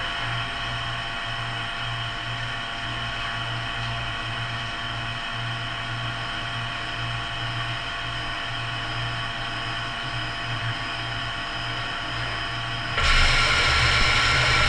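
Studer S33 CNC grinder's grinding wheel running against a steel gear face while grinding, a steady machine sound with several held tones. About thirteen seconds in, a louder rushing hiss joins as coolant sprays hard over the wheel and gear.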